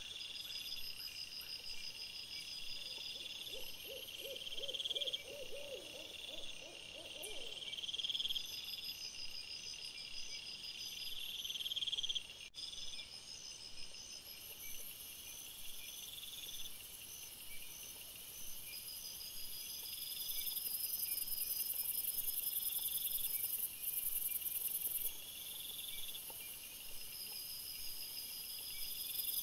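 Night insects trilling in a steady, evenly repeating pattern. A short run of lower pulsed calls comes a few seconds in, and a high hiss grows louder about two-thirds of the way through.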